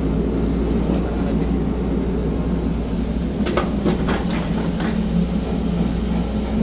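Hydraulic excavator's diesel engine running steadily, with a handful of sharp knocks and clanks about halfway through.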